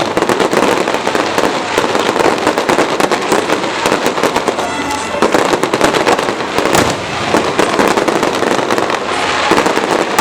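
Fireworks display: a dense, continuous crackling and popping of bursting shells, with one sharper bang about seven seconds in.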